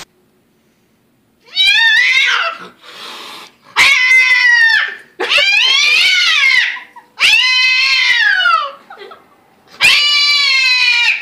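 A cat yowling: five long, drawn-out calls, each rising and then falling in pitch, starting about a second and a half in, with the last still going at the end.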